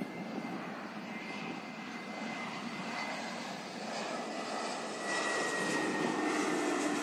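Jet engines of a low-flying Airbus A320-family airliner on final approach: a steady rushing hum with a thin high whine that slides slightly lower, growing louder about five seconds in as the plane comes closer.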